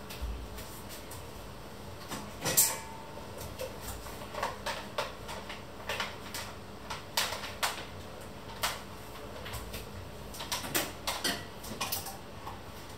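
Kitchen clatter: irregular clicks and knocks of dishes, pots and utensils being handled, the loudest knock about two and a half seconds in.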